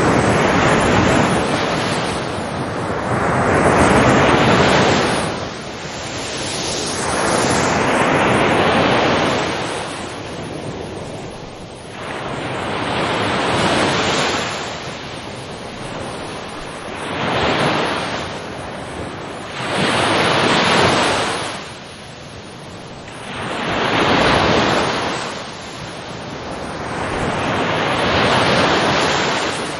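Ocean surf: waves breaking and washing in, a rushing swell that rises and falls back roughly every three to five seconds.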